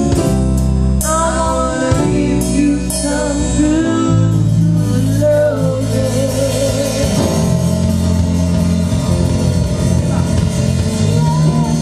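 Live reggae band music: a steady bass line and guitar, with a wavering melody line above.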